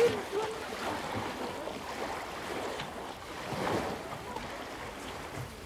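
Small waves washing at the shoreline, with wind on the microphone.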